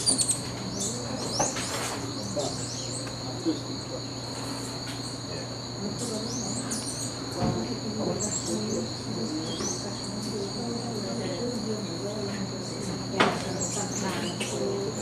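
A steady, high-pitched insect drone with several short, rising bird chirps over it, and a sharp click near the end.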